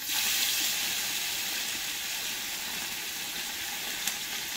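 Masala-coated mackerel frying in hot coconut oil in a pan. The sizzle jumps up sharply as a piece of fish goes into the oil, then holds as a steady hiss, with a light click about four seconds in.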